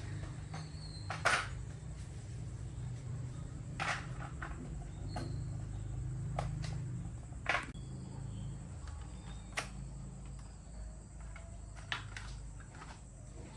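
Occasional sharp clicks and light knocks, about seven in all and unevenly spaced, the loudest about a second in and about seven and a half seconds in, over a steady low hum.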